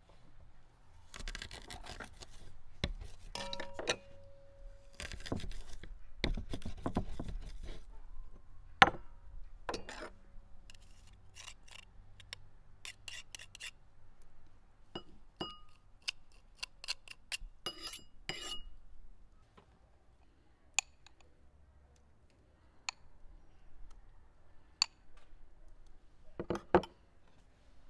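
Hand food prep with no talking: a knife working a garlic clove on a wooden cutting board, then a garlic press squeezing and tapping against a ceramic bowl in a string of short ringing clinks. Near the end a metal spoon clinks in the bowl.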